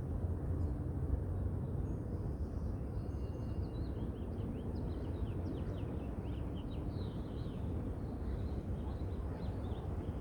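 Steady low rumble of wind and distant city noise, with a small bird chirping a quick series of short high notes from a few seconds in until near the end.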